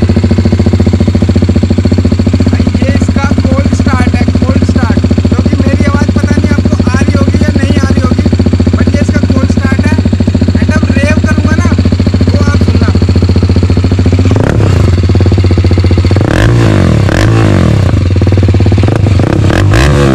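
BMW G 310 RR's single-cylinder engine through a replica SC Project full-system exhaust, freshly cold-started: it idles loud and steady, then from about two-thirds of the way through it is revved in a series of quick blips, each rising and falling in pitch.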